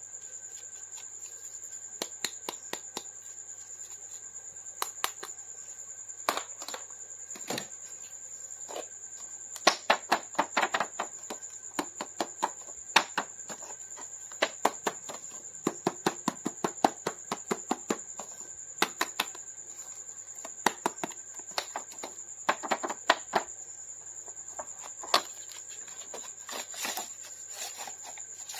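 Irregular clicks and taps, sometimes in quick runs, of hard plastic action figures and packaging being handled, over a steady high-pitched whine.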